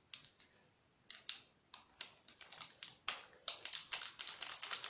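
Plastic bag crinkling and crackling as it is handled and the slime kit's 'magic' powder is shaken out, irregular crisp clicks that grow denser about three seconds in.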